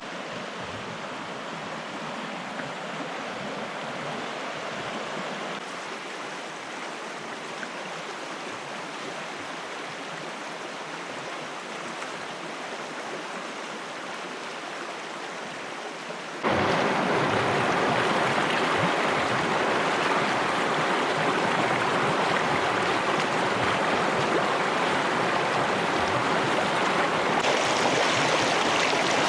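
Steady rushing of running water, like a mountain stream. About sixteen seconds in it suddenly becomes much louder and fuller.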